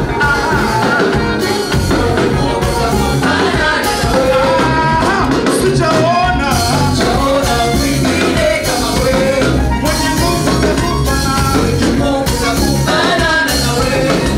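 Swahili gospel praise song: voices singing over a band with bass and drums keeping a steady, upbeat dance rhythm.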